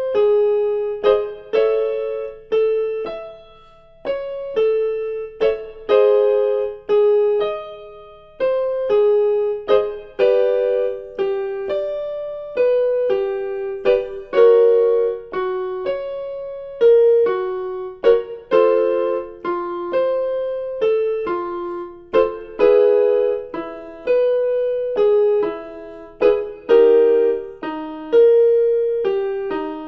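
Piano playing vocal warm-up patterns: short groups of notes in the middle register, each struck and left to ring and fade, repeated at shifting pitches.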